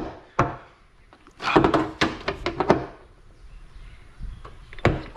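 A part on a Mustang's rear decklid being pried and tugged loose by hand: a run of sharp clicks, knocks and snaps, with a cluster of them about a second and a half in and another sharp snap near the end.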